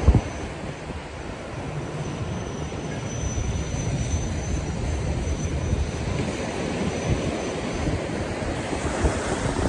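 Wind buffeting the microphone in a steady low rumble, with ocean surf underneath.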